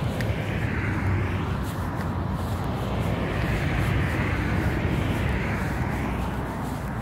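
Passing car traffic: tyre and engine noise of a car swells and fades, with a second car building to its loudest around the middle and fading again, over a steady low rumble.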